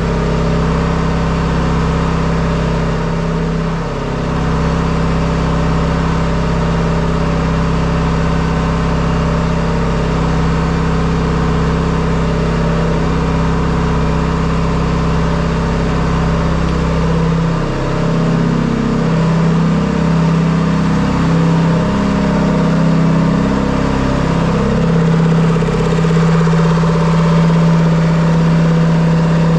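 Detroit Diesel two-stroke diesel engine running steadily. Its speed dips briefly about four seconds in, wavers for several seconds just past the middle, then settles.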